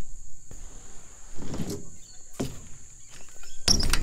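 A few irregular thumps and scuffs as a BMX rider walks across the ramp and picks up his dropped bike, the loudest near the end. Behind them runs a steady high-pitched insect drone.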